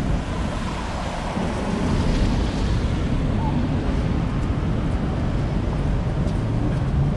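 Steady rain on a clear umbrella overhead, mixed with the hiss and rumble of traffic on a wet city street.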